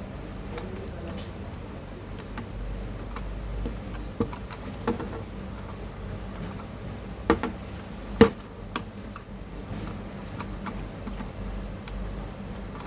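Scattered small clicks and taps of computer hardware being handled, with two sharper clicks a little under a second apart, about seven and eight seconds in, over a steady low hum.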